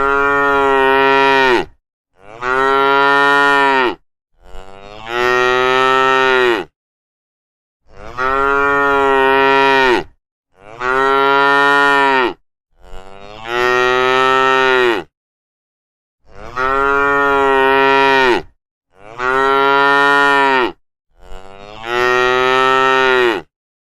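Cattle mooing: nine long, loud moos one after another, each a drawn-out pitched call that swells and then falls away, with complete silence between them.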